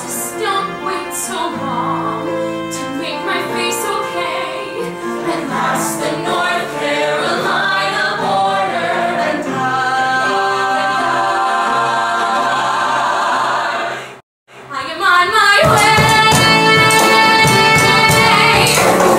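Musical-theatre ensemble singing in chorus, backed by acoustic guitars and violin. About 14 seconds in the sound cuts out for an instant, then louder music starts.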